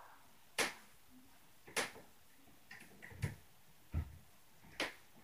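Irregular knocks and thuds, about six in five seconds, two of them with a deeper thump: footfalls of upstairs neighbours stomping, heard in the apartment below.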